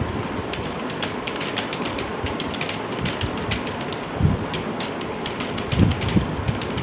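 Fingers typing steadily on a computer keyboard at about 51 words per minute: quick, irregular key clicks, several a second, over a steady hiss. A few low thuds come in past the middle.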